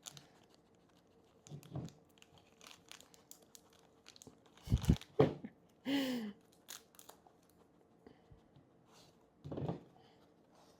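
A packet of icing mix crinkling and tearing as it is opened and emptied into a bowl, with scattered light crackles. There is a dull knock about five seconds in, another near the end, and a brief voiced sound about six seconds in.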